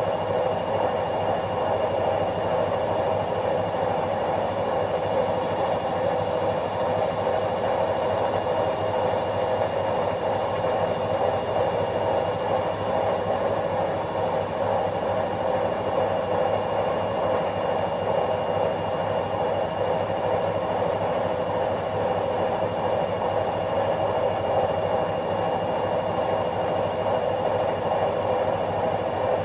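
Washing machine running with a steady, even hum and a thin high whine over it, unchanging throughout.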